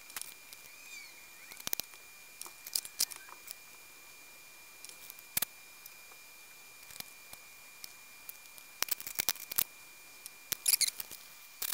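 Scattered sharp clicks and snips of small-parts work: flush cutters clipping off a salvaged heatsink's push pins, and small machine screws and nuts being handled. The clicks come loudest in two quick clusters near the end.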